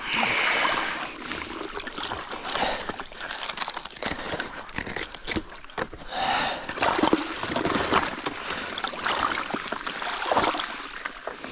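Shallow icy stream water sloshing and splashing as a rubber-gloved hand clears broken ice from it, with many small clinks and crunches of ice shards.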